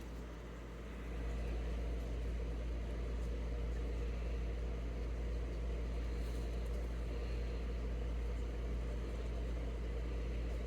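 A steady low mechanical hum, like a motor running, that swells up about a second in and holds level.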